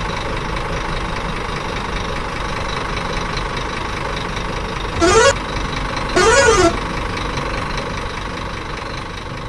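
Truck engine running steadily, with two horn blasts about five and six seconds in, the second a little longer.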